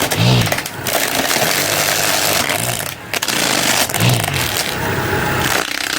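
Small DC motor of a homemade wearable saw running while its blade rasps and scrapes through cardboard. The motor's pitch rises and falls several times as the blade bites.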